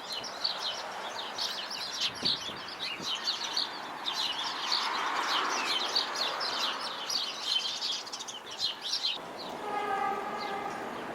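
Many small birds chirping in busy, overlapping chatter. About nine seconds in the chirping gives way to a steady whine of several tones together as a subway train approaches.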